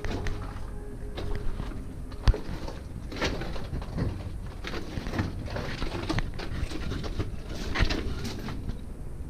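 Irregular footsteps crunching and scuffing on loose rock, with handling noise and one sharp knock about two seconds in.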